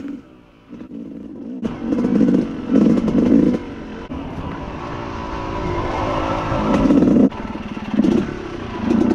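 Yamaha YZ 250 two-stroke single-cylinder dirt bike engine revving up and down in bursts of throttle as the bike is ridden. After a quieter first second or so, a long climb in revs ends with a sudden drop about seven seconds in.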